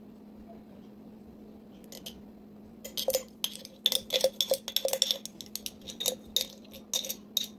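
A quick run of glassy clinks and taps as a spatula works against a glass syrup bottle while chocolate syrup is scraped out over a glass baking dish. The clinks start about three seconds in and keep coming, irregularly, until near the end, over a steady low hum.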